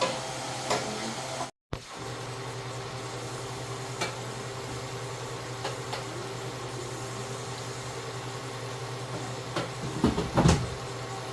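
Steady machine hum in a kitchen, with a few light clicks and a short clatter of knocks about ten seconds in, like cupboards or utensils being handled during cooking.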